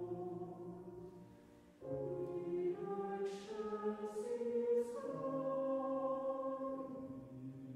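Choir singing a slow piece in held chords; one phrase dies away and the next begins about two seconds in.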